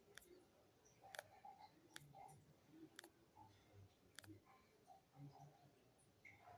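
Near silence broken by faint, sharp clicks, five of them about a second apart.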